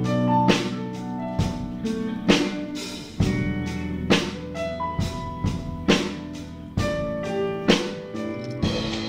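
Live band playing an instrumental passage of a pop song: a drum kit with a strong hit about once a second over a bass line and held melodic notes, no vocals.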